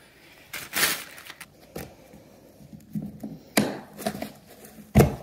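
Pliers pulling carpet staples out of a wooden subfloor: metal scraping and clicking on wood, with sharp knocks as the tool strikes the floor, the loudest just before the end.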